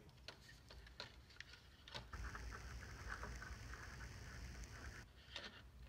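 Faint scattered clicks and light plastic rattling from handling a small plastic quadcopter and its battery wires.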